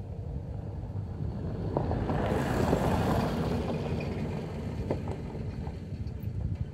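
Wind buffeting the microphone as an unsteady low rumble, swelling into a stronger, hissier gust about two seconds in that eases off a couple of seconds later.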